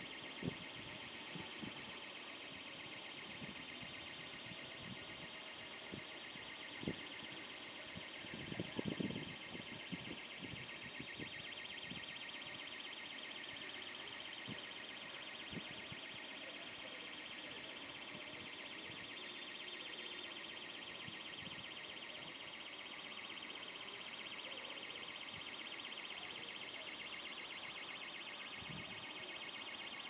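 Car alarm sounding faintly and continuously as a high, rapidly pulsing warble, with a few soft knocks, the loudest a short cluster about nine seconds in.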